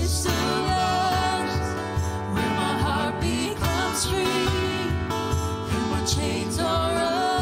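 Live worship band playing a slow gospel song: stage piano, congas and bass guitar, with a voice singing long held, wavering notes in two stretches.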